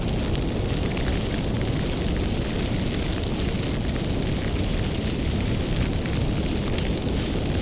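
Wood fire burning, with a steady low rumble and a constant scatter of small crackles and pops.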